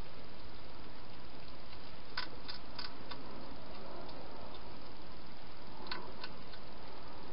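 Hedgehog eating from a bowl in a feeding box: a few sharp crunching clicks, three close together about two seconds in and two more near six seconds, over a steady hiss.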